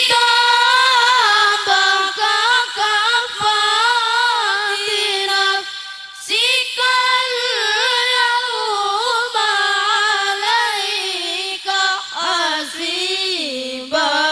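High-pitched voice chanting Quran recitation in long, drawn-out melodic phrases with ornamented, wavering notes, breaking for a breath about six seconds in and sinking lower in pitch near the end.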